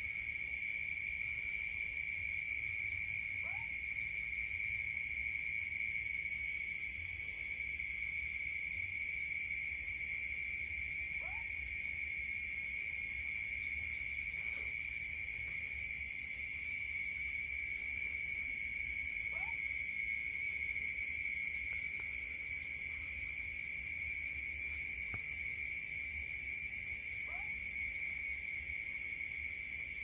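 Night ambience: a steady high-pitched insect drone. Over it an unidentified night animal gives a short rising note four times, about every eight seconds, each shortly after a brief quick series of high pulses.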